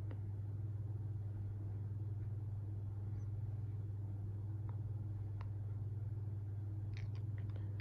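52-inch Litex Spotlight ceiling fan running on low speed: a steady low motor hum, with a few faint ticks in the second half.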